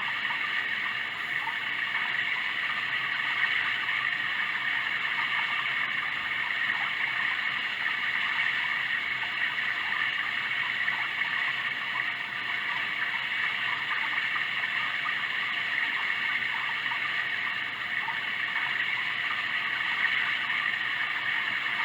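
Sound Oasis ambient sound machine playing a steady running-water track, like a stream, with no change in pitch or level.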